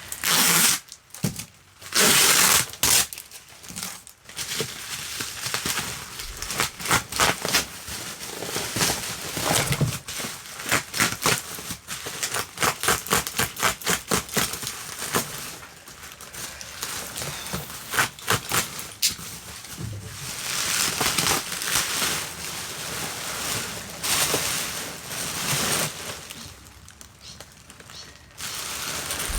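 Packaging being opened by hand: crinkling and rustling of wrapping with many sharp clicks and crackles, including a quick run of clicks about midway.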